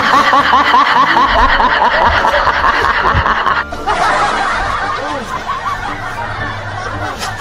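Laughter sound effect: rapid, high-pitched snickering repeated many times a second, over music. There is a brief break a little past halfway, after which the laughing resumes.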